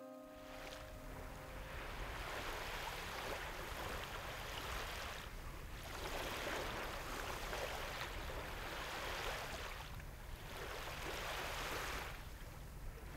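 Waves breaking and washing onto a sandy beach, rising and falling in slow swells every few seconds, over a steady low rumble of wind.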